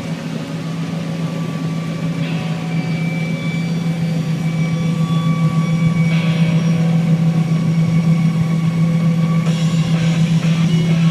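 A steady low engine drone from harvest machinery, slowly growing louder, with music playing over it.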